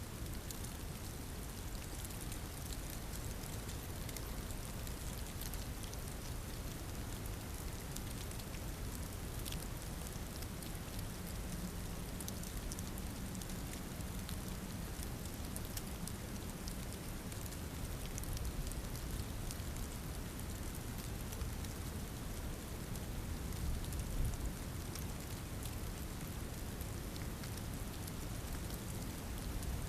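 Steady storm noise: an even hiss of falling precipitation with a fine, crackly patter of drops. It swells a little about two-thirds of the way through.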